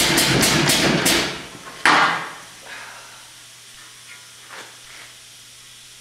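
Powered sheet metal brake running through a bend on a steel strip: a loud rattling clatter of the machine for about the first second, a single heavy metal clunk near two seconds, then a few light clinks as the bent piece is handled, over a steady low machine hum.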